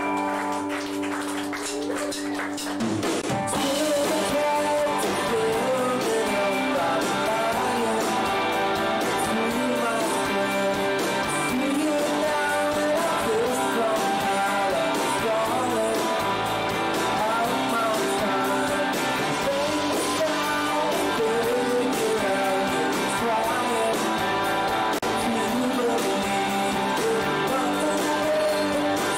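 Live rock band playing: electric guitars, bass, drums and a male lead vocal. A held chord rings at first, the full band comes in about three seconds in, and the singing starts shortly after.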